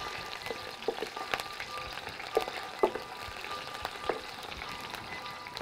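Diced Iberian pork belly sizzling in olive oil in a wide enamelled pan, stirred with a wooden spatula: a steady frying hiss with a handful of sharp clicks and knocks scattered through it. The fat is being gently sautéed (rehogada) to render.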